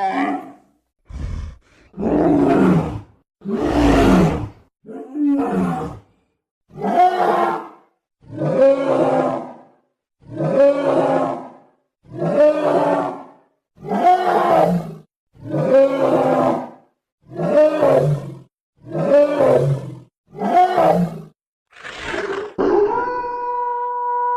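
Werewolf sound effect: a series of about fourteen growling roars, each about a second long, coming at an even pace of about one every two seconds in the later part. Near the end a long, held howl begins, sinking slowly in pitch.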